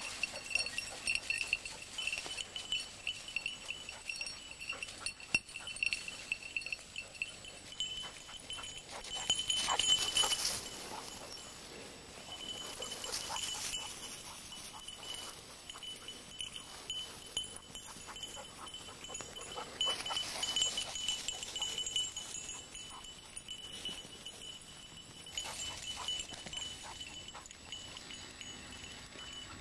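A small bell on a hunting dog's collar tinkling as the dog works through the brush, with stretches of louder rustling through dry grass and scrub.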